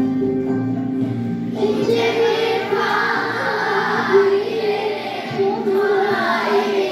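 A class of schoolchildren singing a song together in Turkish over instrumental accompaniment; the voices come in about a second and a half in.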